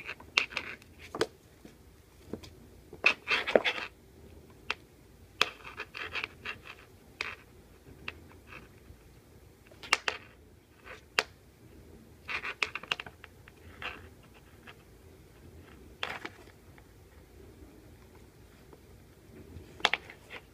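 Kitten wrestling a cable on a laminate floor: irregular bouts of scratching and scraping with light clicks and taps, from claws scrabbling on the floor and furniture and the cable and its plug knocking about.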